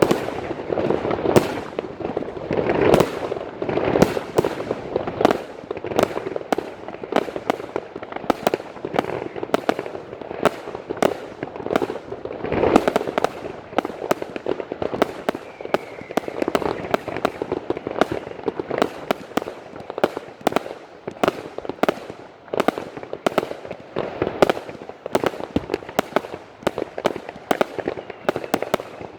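Multi-shot consumer firework cakes firing continuously: a steady barrage of launch thumps and aerial bursts, several shots a second, over a bed of crackling.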